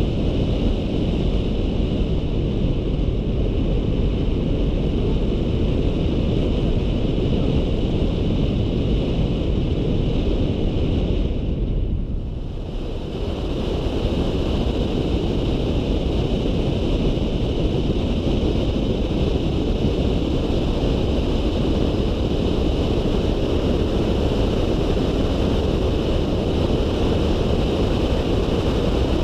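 Wind rushing over a camera mounted on the outside of a Volkswagen Polo 9N3 driving at speed, over a steady rumble of the car's engine and tyres. The noise eases briefly about twelve seconds in.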